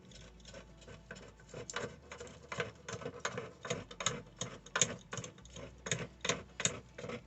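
A run of sharp, irregular clicks and taps, about two or three a second: the couplings of old washing-machine water fill hoses being worked loose and unscrewed.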